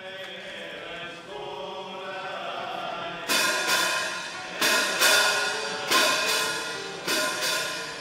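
Music: sustained choir-like chords, joined from about three seconds in by loud crashing percussive hits every second or so, each ringing away.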